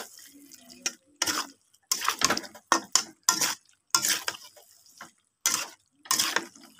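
Metal spatula scraping and clattering against a metal kadai while boiled potato pieces are stirred and tossed into the fried masala. Short, irregular strokes come about two a second.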